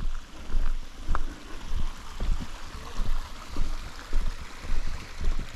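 Footsteps of a hiker walking on a trail: a low thud about every two-thirds of a second, over a steady rushing noise.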